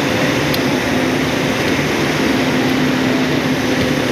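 Heavy industrial machinery running steadily: a loud, even drone with a constant low hum.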